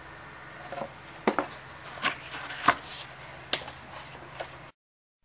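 A cardboard replacement-part box handled and turned over on a hard floor: a series of sharp knocks and scuffs, about six taps over three seconds, that cut off to silence near the end.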